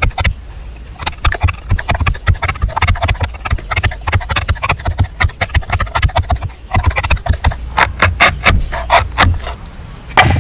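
Hand tool working wood: a rapid, irregular run of sharp knocks and scrapes, several a second, with a brief pause a little past halfway.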